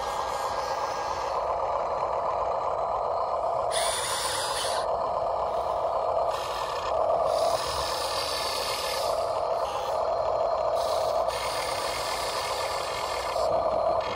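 Electric motors and gearboxes of RC construction vehicle models whining, a steady mid-pitched whine with higher whirring bursts that start and stop several times as the machines move.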